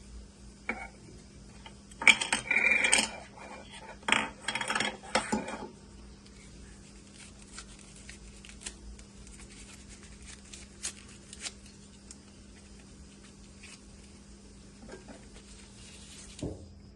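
Handling noise of small hard objects: two short runs of light clattering and clicking a couple of seconds in, then scattered small ticks, over a steady low hum.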